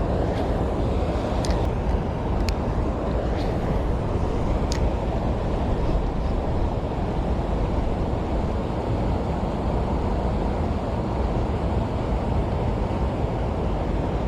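Steady low outdoor rumble with no breaks, with a few faint short clicks in the first five seconds.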